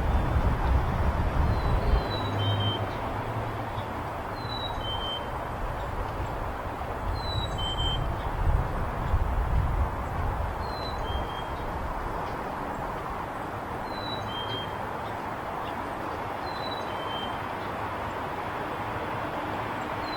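Steady highway traffic noise, with heavier vehicle rumble in the first two seconds and again around eight to ten seconds in. Over it a bird repeats a two-note whistle, a higher note dropping to a lower one, about every three seconds.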